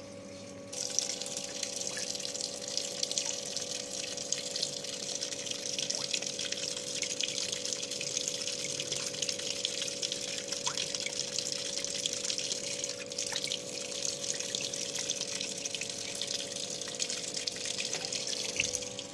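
Water running into the tub of an LG T7270TDDL top-loading washing machine at the fabric-softener stage of the final rinse: a steady rush of water over a steady hum. It starts about a second in and cuts off near the end.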